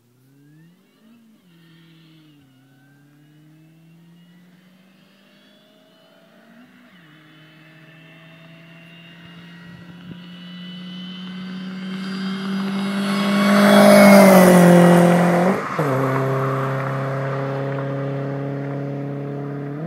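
Supercharged 2006 Chevrolet Cobalt SS's 2.0-litre four-cylinder, breathing through a JBP header, catless downpipe and MagnaFlow 2.5-inch cat-back exhaust, accelerating through the gears toward the microphone. It grows steadily louder, passes about 14 seconds in with a drop in pitch and a quick rev, then holds a steady note as it pulls away.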